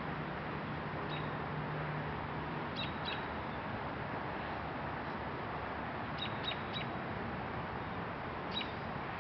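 A bird's short, high chirps in groups of two or three, over a steady rushing background noise.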